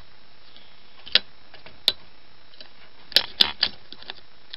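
Sharp metal clicks from the parts of an opened Winkhaus multipoint mortise lock knocking together as it is handled: single clicks about one and two seconds in, then three in quick succession a little after three seconds.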